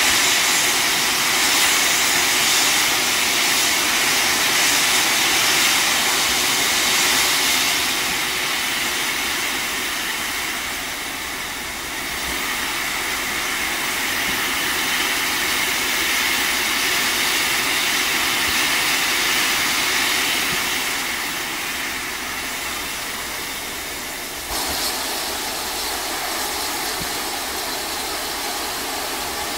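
Steam locomotive 3801, a C38-class Pacific, standing and letting off steam: a loud, steady rushing hiss. It eases off and swells again twice, then jumps up suddenly near the end.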